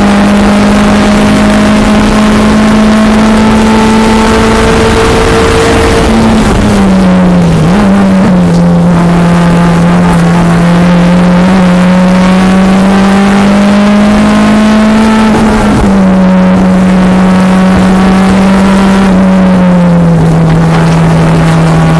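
A 1993 Honda Civic's swapped-in Honda K24 2.4-litre inline-four running hard on track, loud in the cabin. Its pitch falls sharply about six to eight seconds in, climbs slowly for several seconds, then drops back twice more, over steady road and wind noise.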